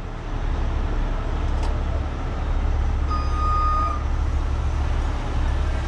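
A heavy rotator tow truck's diesel engine and hydraulics run under load as the boom is worked, a steady low rumble that steps up about half a second in. About three seconds in, a single high beep sounds for about a second.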